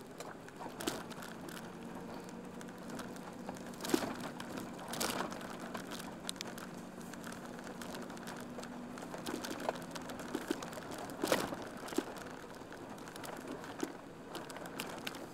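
A van's engine running with a steady low hum, heard from inside the cabin as it drives across grassland. Over it come scattered crackles and a few sharp clicks, the strongest about four, five and eleven seconds in.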